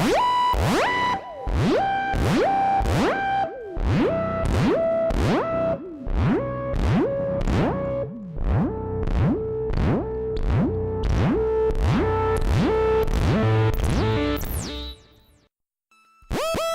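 Elektron Analog Four/Keys analog synthesizer preset playing a repeating sequenced line, about two notes a second, each note starting with an upward pitch sweep, the held pitch stepping lower over the phrase. It fades out near the end, and a new, brighter sound starts just before the end.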